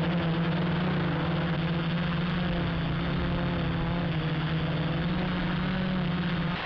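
Q450 quadcopter's electric motors and propellers buzzing in flight, heard from a camera on the frame: a steady low hum with fainter higher tones that waver slightly, over an even rushing noise.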